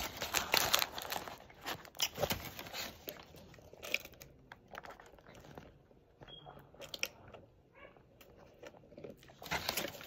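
Close-up open-mouthed chewing and lip smacking on a Whopper burger, with the paper wrapper crinkling now and then. Busiest in the first few seconds, then quieter midway during a few sips from a soda cup, and busier again near the end.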